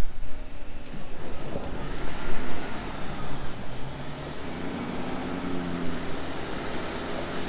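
Diesel engine of a Mercedes-Benz Arocs 8x8 dump truck running under load as it drives over a gravel track, with a low rumble. Its note grows stronger and higher about halfway through.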